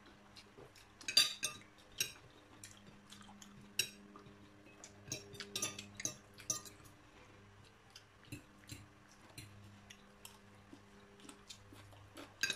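Metal spoons and forks clinking and scraping on ceramic plates as people eat, in irregular clicks. The loudest clatter comes about a second in, a busier run about five to six and a half seconds in, and a last sharp clink near the end, over a faint steady low hum.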